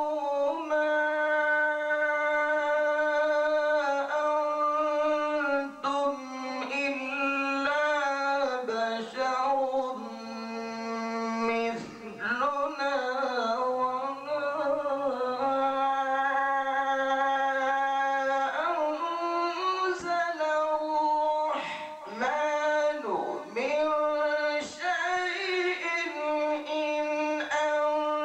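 A man reciting the Quran in a slow melodic chant: long held notes with ornamented turns in pitch, broken by short pauses for breath.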